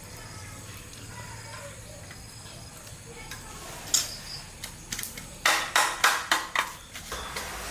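Kitchen utensils knocking and clinking: a single sharp knock about four seconds in, then a quick run of about five knocks near the end.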